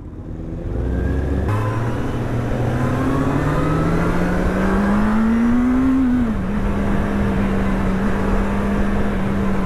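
Motorcycle engine heard from the rider's seat while riding, its pitch rising steadily for several seconds as it pulls away, then dipping slightly and holding steady, over wind and road noise.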